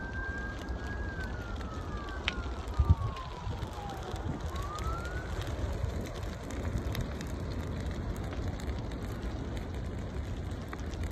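Wildfire crackling as it burns through grass, brush and pine trees. A siren wails over it, rising and falling in pitch, and stops about five seconds in. One sharp thump comes about three seconds in.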